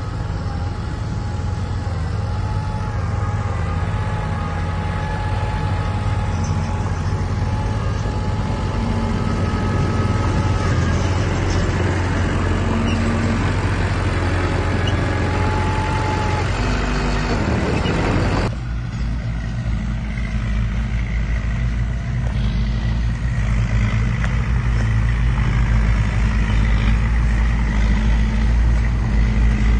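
Heavy diesel engines of construction machinery running continuously, a deep drone with a steady whine over it. About two-thirds through, the sound cuts abruptly to a deeper engine drone.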